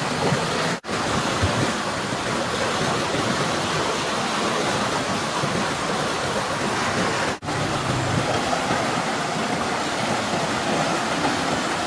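Stream water rushing steadily, a continuous even wash that cuts out for an instant twice.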